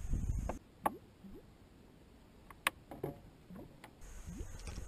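Scattered sharp clicks and light knocks from handling a just-caught largemouth bass and working the lure out of its mouth in a canoe. A low rumble sits in the first half-second, and two clicks stand out, about a second in and a little before the three-second mark.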